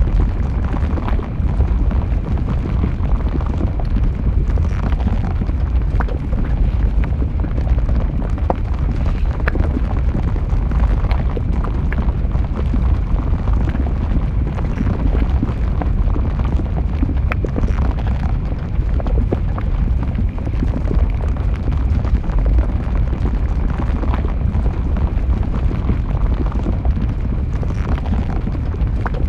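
Flowing lava: a steady deep rumble with scattered crackles and pops throughout.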